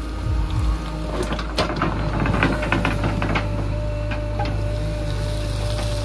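JCB 3DX backhoe loader's diesel engine running steadily while the arm swings back and digs, with a run of sharp clicks and knocks about one to three and a half seconds in.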